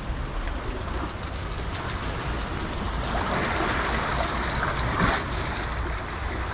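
Steady wind rumbling on the microphone over the wash of the sea against the breakwater rocks.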